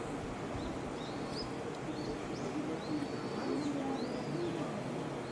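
Small birds calling: a string of short, high, arching whistled notes, over steady background noise.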